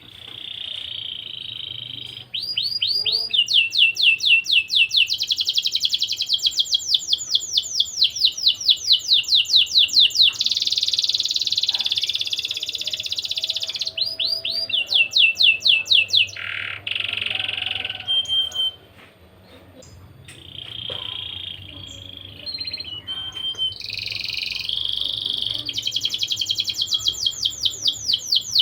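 Domestic canary singing, a 'gacor' (constantly singing) male: long rolling trills made of fast runs of identical high notes. The note type changes from phrase to phrase, with a brief lull about two-thirds of the way through.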